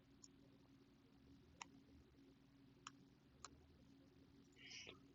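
Near silence over a faint steady hum, broken by four faint sharp clicks spaced a second or so apart and a brief faint scratchy noise near the end.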